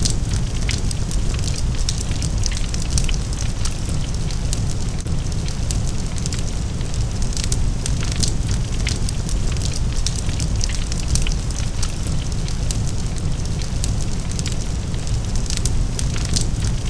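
Large fire of burning wood and material, crackling and snapping constantly over a deep, steady low rumble.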